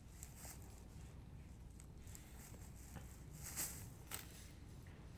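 Quiet outdoor ambience with a faint low rumble, and two faint short knocks about three and a half and four seconds in.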